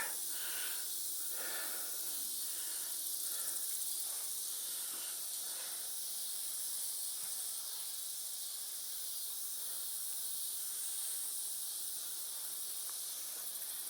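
Steady high-pitched hiss with no distinct events.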